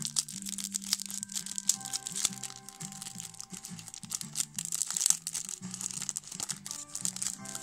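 Clear cellophane wrapper on a trading card crinkling and tearing as it is peeled open by hand, with fast irregular crackles, over background music.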